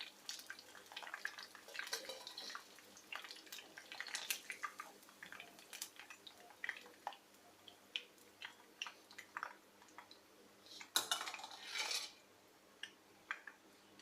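A metal utensil clinking and scraping against a frying pan as deep-fried cauliflower pieces are lifted out of the hot oil, in many small light clicks, with a louder scraping clatter near the end.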